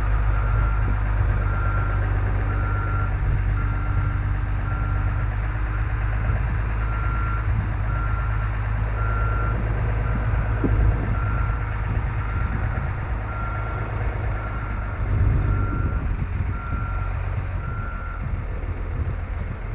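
Wheel loader's backup alarm beeping steadily at about one beep a second over the low, even running of its diesel engine while the John Deere 544G reverses; the beeping stops shortly before the end.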